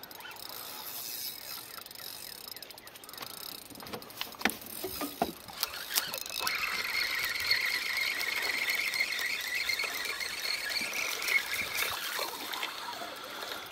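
Spinning reel's drag whining as a hooked striped bass runs and pulls line off. A faint whine with a few clicks comes first, then a steady, louder whine starts about six seconds in and stops shortly before the end.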